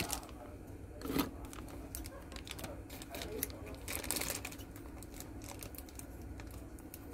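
Hard plastic gashapon capsule and its paper insert being handled: scattered light plastic clicks and paper rustles, with louder knocks about a second in and again about four seconds in.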